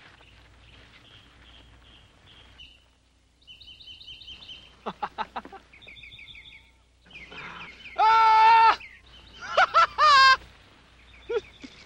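Birds chirping in short, repeated high calls, then a man's loud held yell followed by a few bursts of laughter near the end.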